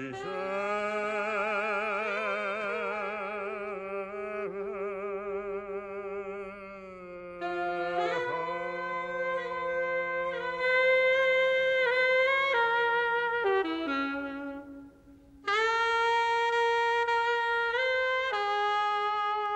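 Alto saxophone playing a slow, mournful line. It opens on a long held note with heavy vibrato, then moves into phrases of stepped notes, breaking off briefly near the end before coming back in.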